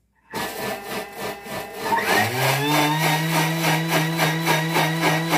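Thermomix motor starting up and spinning its blades through water in the bowl to rinse out the leftover viburnum and honey. The hum rises in pitch over the first two seconds, then runs steady with a regular pulsing.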